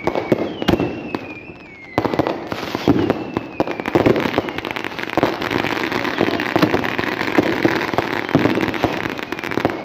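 Many fireworks going off at once: a dense run of pops and crackles that thickens about two seconds in. Near the start there are falling whistles.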